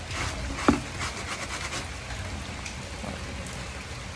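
Scrub brush rubbing a wet fabric makeup bag in short strokes, with one sharp knock about two-thirds of a second in. After that the strokes stop and an even patter like dripping water or rain is left.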